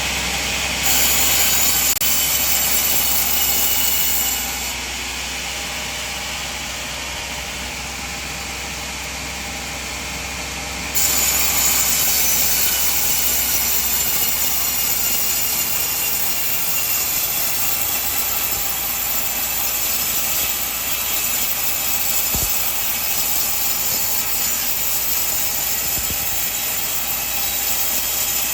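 Sawmill saw cutting coconut wood, a steady rasping hiss. The level drops abruptly about four seconds in and jumps back up about eleven seconds in.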